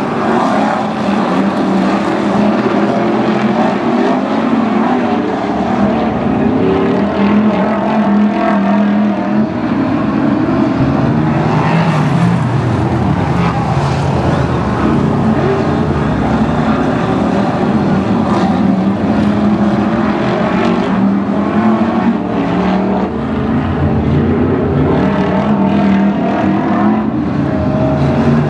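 Several BriSCA F1 stock cars' V8 engines running hard around a shale oval, loud and continuous, their engine notes rising and falling as cars go past.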